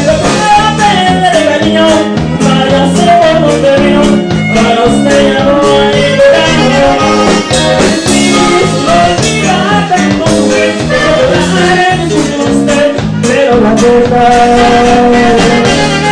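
Live Latin band music: electric bass and acoustic guitar, with a male lead singer.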